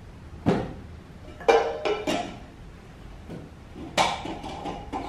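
Things being handled and set down on a small table while bags are unpacked: a handful of sharp knocks and clatters, the loudest about half a second, a second and a half and four seconds in.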